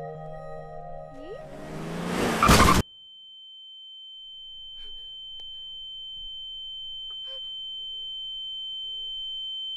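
Film sound design: ambient music with a rushing swell that rises and cuts off abruptly about three seconds in. A single steady high-pitched ringing tone follows, growing slowly louder, like ringing in the ears.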